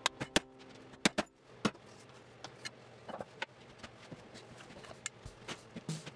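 Scattered sharp clicks and taps of a metal leatherworking tool handled over leather on a granite countertop, a few louder ones in the first second and a half, then lighter ticks.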